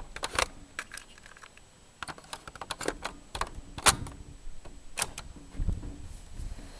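Irregular mechanical clicks and clacks of hands working a Sanyo boombox's cassette deck and controls between tracks, with several louder clunks spread through.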